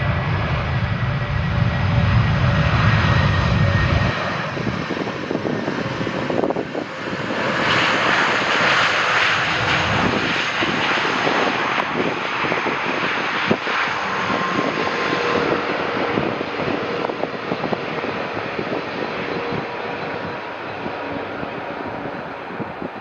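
Jet airliner on landing approach passing close by: a continuous engine rush with a faint steady whine, loudest about eight to ten seconds in and then slowly fading. A deep rumble underneath cuts off suddenly about four seconds in.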